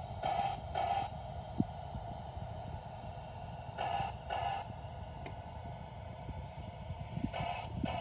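Steam-locomotive whistle from a MyLocoSound Premium sound card, played through the model locomotive's speaker. It gives three sets of two short toots, about three and a half seconds apart. Two short blasts is the railroad signal to proceed. A steady hum and faint low clicking run underneath.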